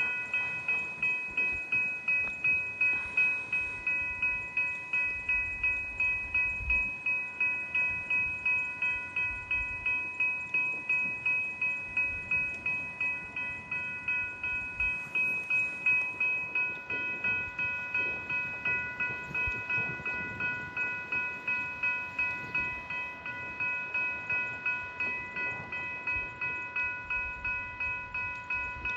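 Railway level-crossing bell ringing with rapid, even strikes, about two to three a second, its ringing tones steady throughout.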